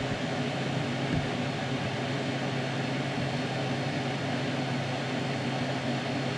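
Steady low mechanical hum with an even hiss, such as a fan or air-conditioning unit running.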